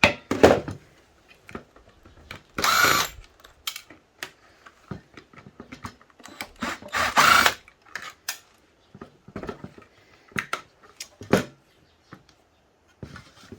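Wire cutters snipping wires and the wires being pulled out of a metal electrical box: irregular sharp clicks and snaps, with two longer scraping bursts about three and seven seconds in.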